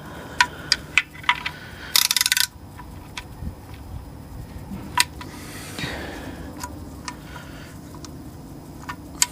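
Ratchet wrench clicking as the oil drain plug is tightened: a few single clicks at the start, a quick spin of rapid ratcheting about two seconds in, then occasional clicks.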